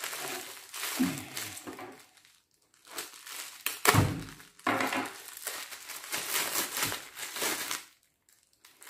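Plastic bubble-wrap packaging crinkling and rustling in bursts as it is handled and slit open with a kitchen knife, with one sharp knock about four seconds in, the loudest sound. The rustling stops near the end.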